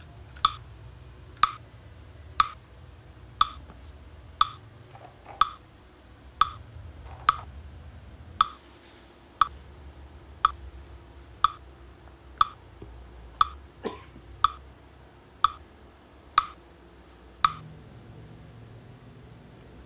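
A short, sharp, pitched tick repeating evenly about once a second, about eighteen times, then stopping near the end.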